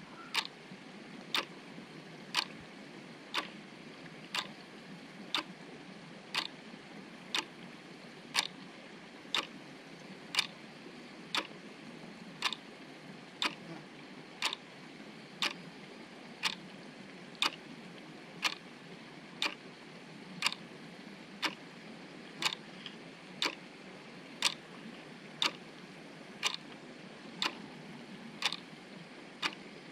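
Sharp ticks evenly spaced about once a second, over a faint steady background hiss.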